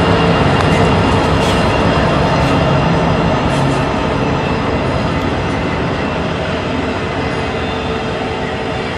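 Norfolk Southern intermodal freight train passing close by. The diesel locomotives' engine drone fades over the first few seconds as the units move off, leaving the steady rolling noise of the container and trailer cars, which slowly eases.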